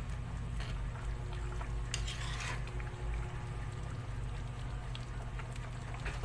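Fish escabeche broth simmering in a pan over a steady low hum, with a few light utensil scrapes or clicks about two seconds in.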